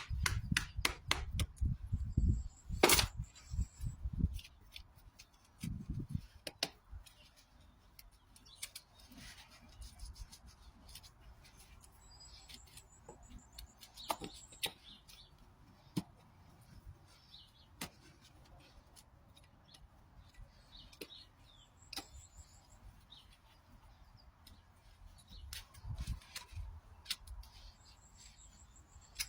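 Farrier's tools working a horse's overgrown hoof: scattered sharp clicks and snips of hoof being cut and pared, with heavier thumps during the first four seconds and again near the end.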